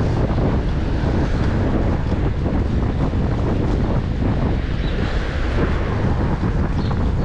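Wind buffeting the microphone during a bicycle ride: a loud, steady low rumble of air rushing over the mic.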